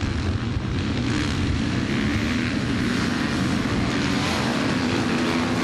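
Several motocross bikes racing on a dirt track, their engines running hard, the note rising and falling as the riders open and close the throttle.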